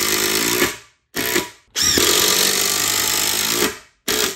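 Ryobi ONE+ cordless impact driver driving a long screw into a pre-drilled pine board, run in several pulls of the trigger: about a second, a short burst, a longer run of about two seconds, then a brief final burst as the screw head seats.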